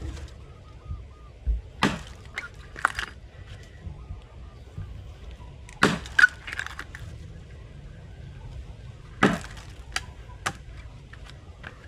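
Felling axe chopping into a log, swung one-handed: three heavy blows about three and a half seconds apart, each followed by a lighter knock.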